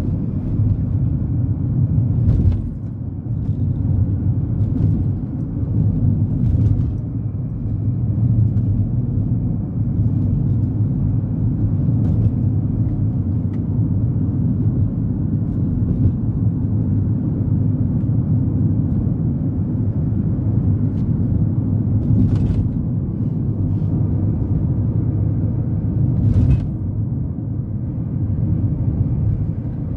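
Cabin noise inside a Honda Element driving along a paved road: a steady low rumble of tyres and engine. A few sharp knocks sound over it, about a quarter of the way in and twice near the end.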